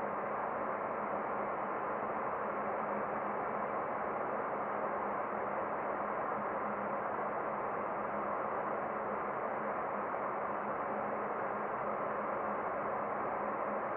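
Steady cockpit noise of a Boeing 737-800 on final approach: an even rushing hiss with a faint steady hum underneath.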